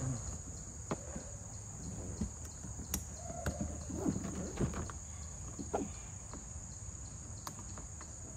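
Insects chirring steadily, with scattered light clicks and rustles as the Oru Lake folding kayak's plastic hull panels and strap buckles are pushed together and fastened.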